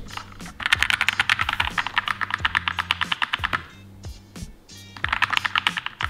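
Fast typing on a Keychron K2 mechanical keyboard: a rapid run of key clicks for about three seconds, a pause, then another run starting about five seconds in.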